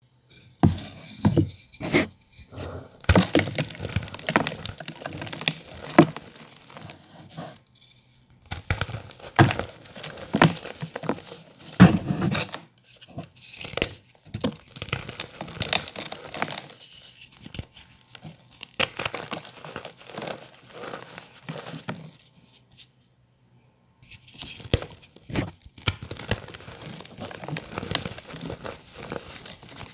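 Blocks of gym chalk crushed and crumbled by hand: repeated sharp snaps and crunches as the bars break, with crumbling and gritty rustling between them and a few brief pauses.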